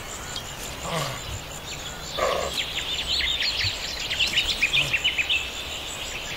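Bush ambience with wild birds chirping: a short lower call about two seconds in, then a quick, busy run of high chirps lasting a few seconds, over a steady background hiss and a faint, regular high ticking.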